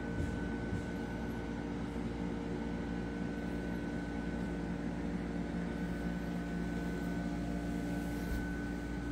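Steady hum of running reef-aquarium pumps, several constant tones over a soft, even hiss.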